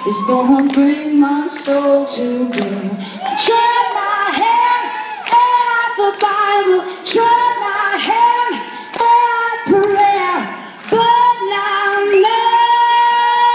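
A woman's voice singing solo, sliding between held notes, with tambourine jingle strikes and no band underneath; one long note is held near the end.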